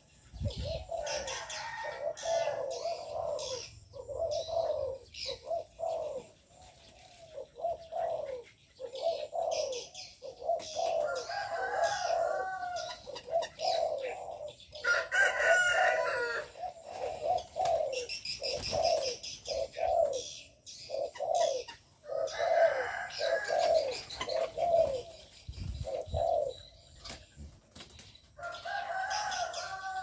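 Several doves cooing over and over, the coos following one another about twice a second throughout. Bursts of higher chirping and twittering from smaller birds come in and out.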